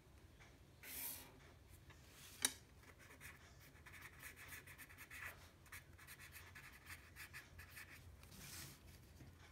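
Faint quick strokes of a felt-tip pen scratching on paper as words are hand-written, lasting about four seconds. A brief rub comes about a second in and a sharp tap about two and a half seconds in, before the writing.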